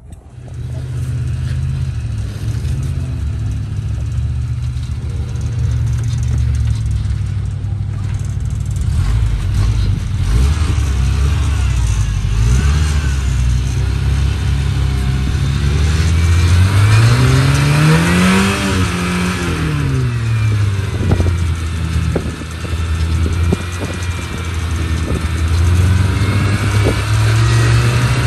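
Rock-crawler buggy engine running under load as it climbs over boulders. It revs up steeply about two-thirds of the way in and settles back down, with scattered short knocks afterwards.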